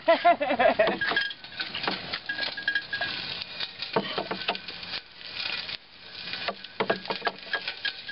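Irregular clinks and knocks from a home-made sweet sorghum press as stalks are worked through it, with juice dripping and trickling from its metal spout into a pot.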